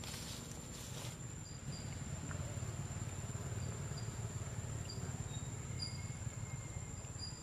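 Insects drone steadily at one high pitch over a low rumble, with a few short, faint high chirps scattered through.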